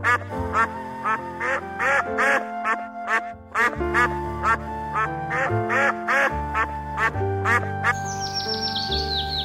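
Ducks quacking in a rapid series, about three short calls a second with a brief pause partway, over background music. Near the end the quacks give way to a quick run of high bird chirps falling in pitch.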